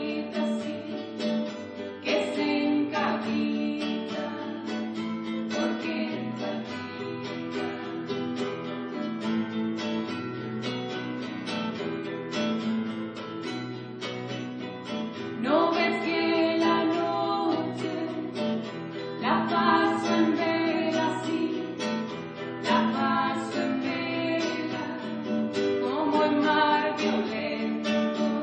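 Music: a voice singing over strummed acoustic guitar, with the singing coming in more strongly from about halfway through.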